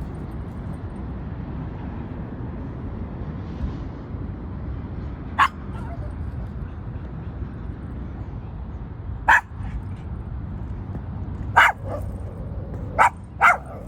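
A dog barking at birds in short, single, sharp barks, five in all: the first about five seconds in, then more often toward the end, the last two close together. A steady low rumble lies underneath.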